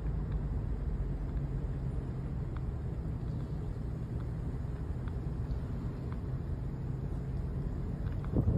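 Steady low rumble with a faint hum in it, rising into a louder rush of noise near the end.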